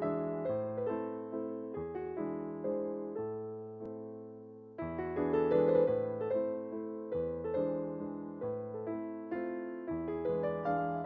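Background piano music: slow notes and chords that strike and die away, with a louder passage starting about halfway through.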